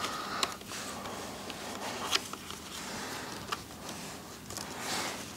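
Hands tucking a motorcycle's wiring and fuse blocks into place in the frame: light rustling of cables with a few sharp clicks.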